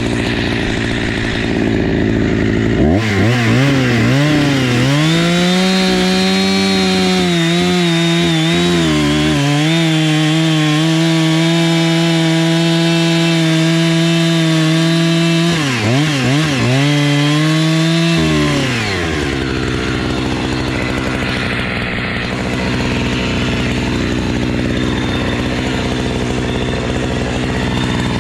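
Two-stroke chainsaw cutting into a poplar trunk. The engine revs up about three seconds in and holds high, steady revs for about fifteen seconds, dipping briefly twice, then drops back to lower revs for the rest.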